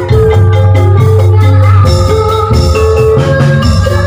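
Live oklik music: tuned bamboo percussion and drums playing a campursari-style tune, with a woman singing through a microphone and PA.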